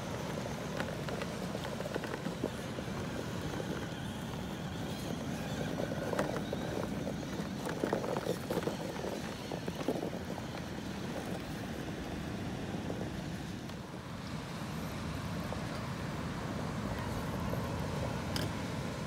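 Electric RC rock crawler grinding slowly up sand and rock, its motor and gears running under load while the modded tires scrabble and grab with scattered clicks, most of them in the middle of the climb. Wind rushes over the microphone throughout.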